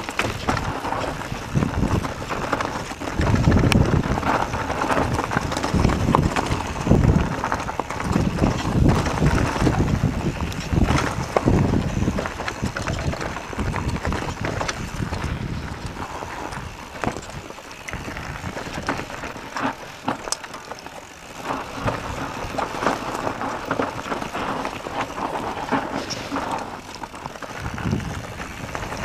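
Mondraker Summum downhill mountain bike riding down a rough dirt trail: tyres on dirt and roots, with frequent knocks and rattles from the bike over the bumps and wind buffeting the camera microphone. It goes quieter for a few seconds a little past the middle.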